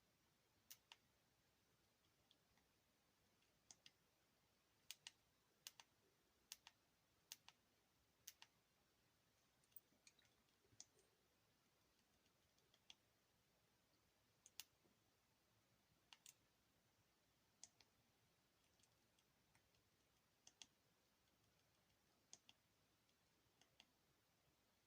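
Faint, irregular clicks of a Sony Ericsson K508i's keys being pressed, many coming in quick pairs a fraction of a second apart, with a few longer pauses between presses.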